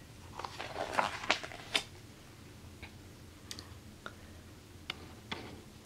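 A picture-book page being turned by hand: a short cluster of paper rustles and crackles in the first two seconds, followed by a few faint scattered clicks.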